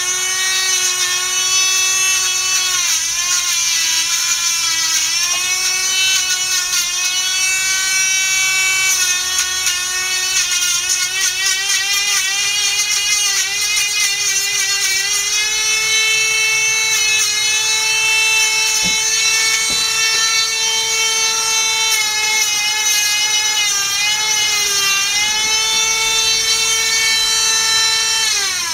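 A handheld rotary nail grinder runs steadily with a high whine while grinding down a Labrador's nails. Its pitch dips briefly and recovers each time it is pressed against a nail. At the very end it winds down as it is switched off.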